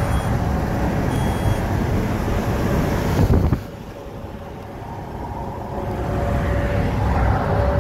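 In-cab engine and road noise of a 1990 Toyota Hiace truck at highway speed, its 1.8-litre 2Y four-cylinder petrol engine running steadily under a faint steady whine. A little over three seconds in the noise drops off sharply, then builds back up over the next few seconds.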